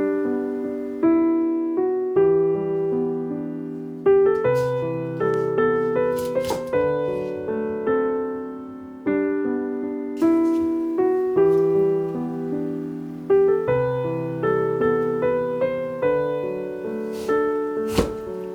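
Soft background piano music, a slow melody of single decaying notes over low chords. A few short sharp knocks cut through it, the loudest near the end.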